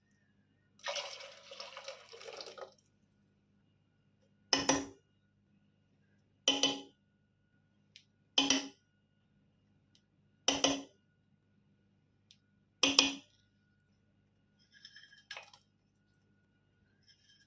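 Kitchen utensil clinking against a cooking vessel: five sharp ringing strikes about two seconds apart, after a short rush of liquid being poured near the start.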